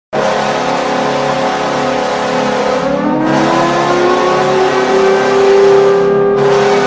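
Buffalo Sabres goal horn: an old tornado siren layered with a fire truck siren, several held tones sounding together. About three seconds in, one siren rises in pitch and levels off.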